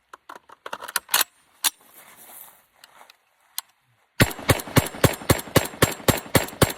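Metallic clicks and rattles of the Kalashnikov Komrad 12-gauge semi-automatic shotgun being handled, then, about four seconds in, a rapid string of about a dozen shots fired as fast as the trigger can be pulled, four to five a second.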